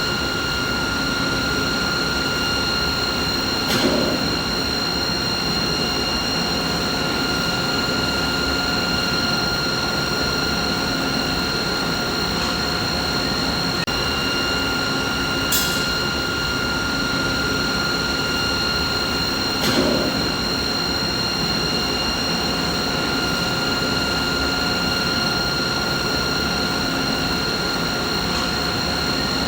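Steady machinery hum: a broad even noise with several steady high whining tones on top, and a few brief clicks and knocks, about 4 s and 20 s in.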